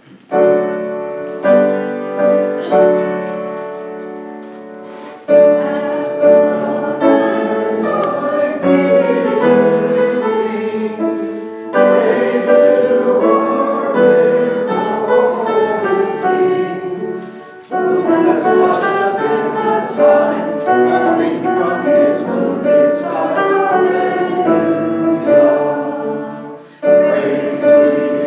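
Hymn music: a few struck keyboard chords that die away, then from about five seconds in a congregation singing the opening hymn with instrumental accompaniment.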